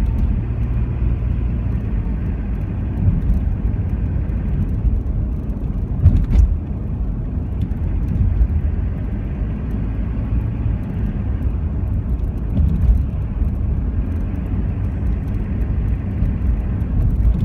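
Steady low road and engine rumble inside a moving car's cabin, with a brief knock about six seconds in.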